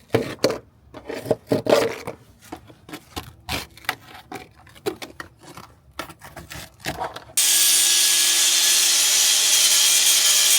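Irregular clicks and knocks of tool handling. About seven seconds in, an angle grinder sets in abruptly and grinds steadily on sheet metal: a loud, even hiss over a steady motor tone, stripping rust from a car's floor pan.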